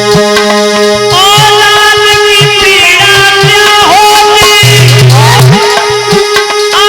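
Indian devotional folk music: a steady drone and drum beats, with a melody line of sliding, ornamented notes entering about a second in.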